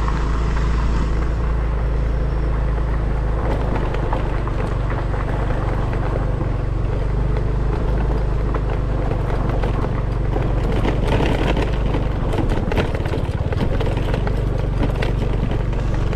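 Motorcycle engine running at a steady pace while riding a rough dirt trail, with tyre and road noise and many short clicks and knocks from the bike over the uneven ground, more of them in the second half.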